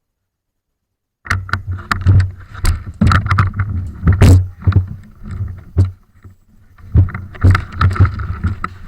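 Loud, uneven low rumbling and crackling noise on the microphone, like buffeting or rubbing against it. It cuts in abruptly about a second in, after dead silence.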